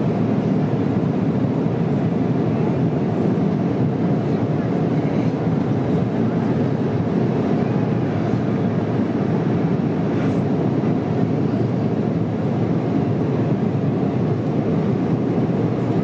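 Steady low roar of engine and airflow noise inside the cabin of a Boeing 777-200ER airliner in flight.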